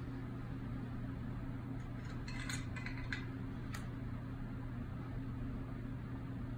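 A few light clinks and taps of tea utensils on porcelain, between about two and four seconds in, as tea leaves are spooned through a funnel into the teapot. Under them runs a steady low hum.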